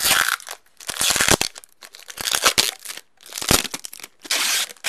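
Tape and clear plastic film crinkling and tearing as they are peeled off and crumpled by hand, in about five short bursts.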